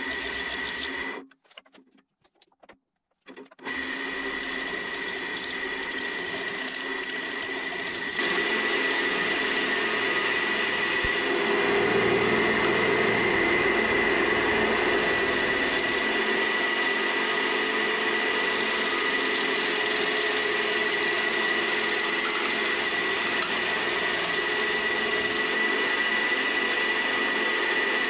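Wood lathe running with a steady high whine, the blank spinning on it; the sound drops out for about two seconds a second in and comes back, then grows louder about eight seconds in and stays steady.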